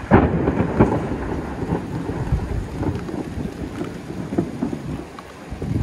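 Thunder: a sudden loud crack just after the start, then a crackling rumble that carries on for several seconds and swells again briefly near the end.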